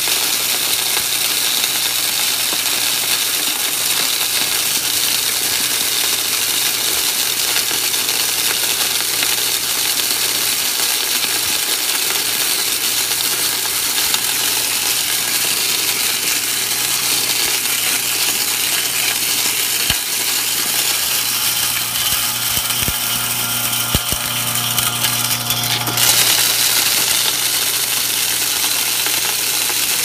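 Small electric branch chipper running with a steady motor hum while it cracks whole corn kernels: a continuous clattering, rattling hiss of kernels being chopped and thrown out. About four seconds before the end the clatter grows sharper and louder as a fresh scoop of corn goes in.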